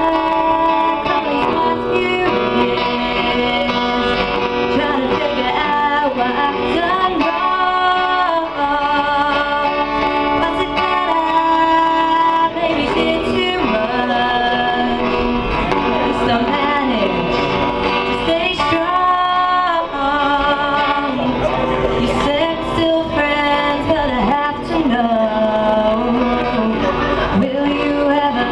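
A song with singing over guitar accompaniment.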